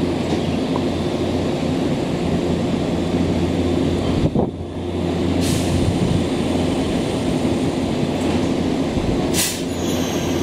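Nankai 7100 series electric train standing at the platform before departure, its on-board equipment giving a steady hum. There is a knock about four seconds in, and two short hisses of air about five and nine seconds in.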